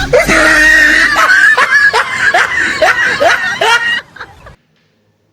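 Loud laughter in rhythmic bursts, about two or three a second, cutting off suddenly about four seconds in.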